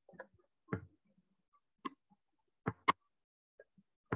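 A few quiet, scattered clicks and taps, about six in four seconds, from drawing on a computer whiteboard.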